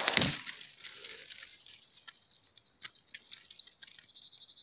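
Red-whiskered bulbul nestlings begging: a rapid run of thin, high cheeps, opening with a brief loud rustle.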